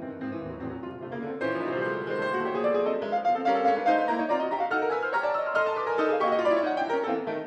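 Grand piano played fast, in dense chords and running figures, getting fuller and louder about a second and a half in.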